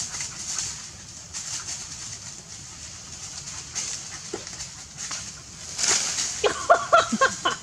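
Dry leaf litter rustling for several seconds, then a dog barking in a quick run of short barks about six seconds in, directed up at monkeys in a tree.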